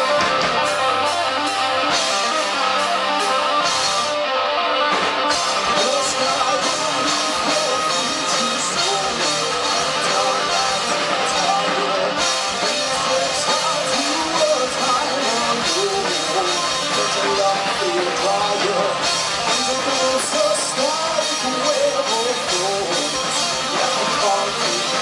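Live rock band playing the instrumental opening of a song, with guitar and drum kit.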